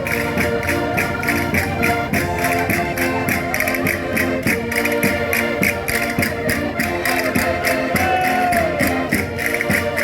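Concertinas playing a lively dance tune live, with chords of held reedy notes over a steady quick percussive beat.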